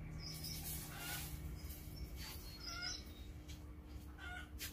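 Birds chirping faintly in short calls, about five of them spread across a few seconds, over a steady low hum.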